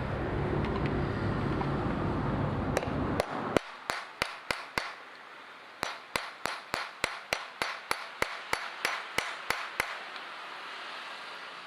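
A steady low rumble that cuts off suddenly about three and a half seconds in, then a run of about twenty sharp metallic taps, evenly spaced at roughly three a second with a short break partway through: a hand tool striking metal parts while the outboard motor is being taken apart.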